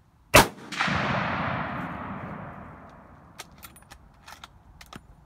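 Rifle shot, followed about half a second later by the louder boom of an exploding Tannerite target downrange, which rumbles and echoes away over about two seconds. A few light clicks follow near the end.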